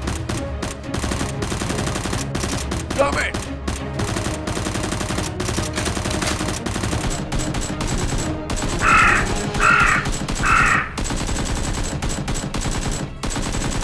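Rapid gunfire, shots in quick succession, as in a firefight sound effect. About nine seconds in come three short harsh calls in a row.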